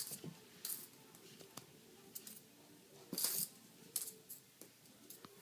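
A puppy at play, making several short scratchy rustles and clicks, the loudest a little after three seconds in.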